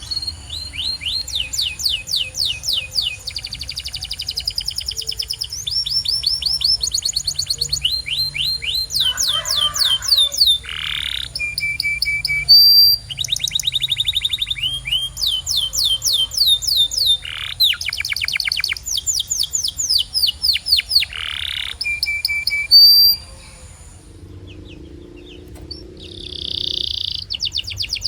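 Domestic canary singing: a long song of fast repeated trills and rolls, phrase after phrase, high-pitched. The song breaks off about 23 seconds in and a new phrase starts near the end.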